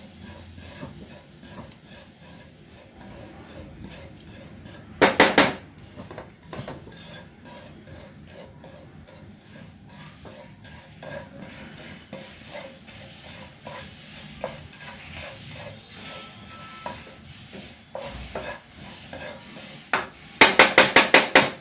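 Wooden spatula scraping and stirring poppy seeds as they dry-roast in a nonstick pan, a soft steady rubbing. Twice, about five seconds in and again near the end, there is a short, loud burst of rapid knocks.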